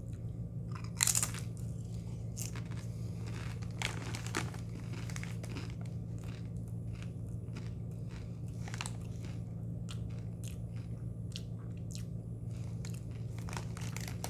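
A person biting and chewing Doritos Guacamole tortilla chips: a loud crunch about a second in, another near four seconds, then repeated smaller crunches while chewing, over a steady low hum.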